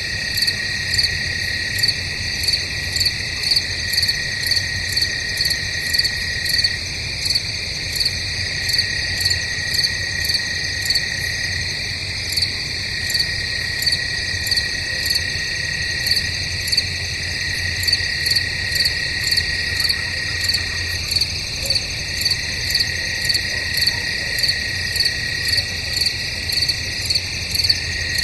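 Night insect chorus of crickets: a regular rhythm of chirps, somewhat more than one a second, over a steady high trill.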